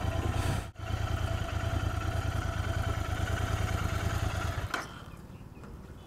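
Royal Enfield Interceptor 650's parallel-twin engine running steadily at low revs, then switched off with a click near the end.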